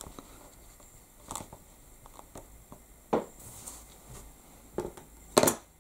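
Light handling noises of a rubber stamp being pressed onto card, lifted off and put aside on a tabletop: a few scattered soft knocks and taps, the loudest a knock near the end.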